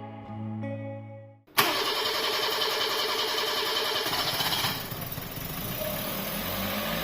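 Music fades out, then about a second and a half in a freshly overhauled Toyota 1SZ-FE four-cylinder engine is heard starting and running at a fast, busy idle that eases off about three seconds later. Music comes back in over it near the end.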